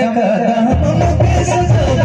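Live Nagpuri band playing an instrumental passage: a wavering lead melody over drum and bass, with the low rhythmic pulse coming in under a second in.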